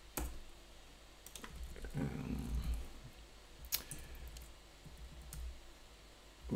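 A few sharp, scattered clicks of computer input at a desk, with a brief low murmur about two seconds in.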